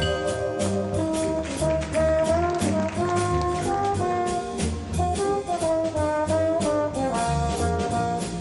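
Big band playing a jazz waltz, with a trombone soloing a sustained, sliding melody over the rhythm section's steady beat.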